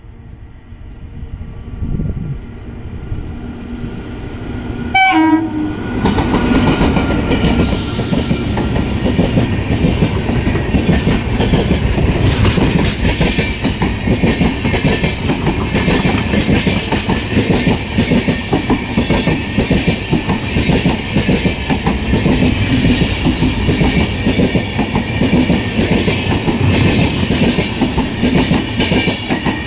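WAP-4 electric locomotive approaching with its horn sounding. The horn's pitch drops sharply as the locomotive passes about five seconds in. Then come the steady rumble and clickety-clack of LHB coaches rolling past at speed.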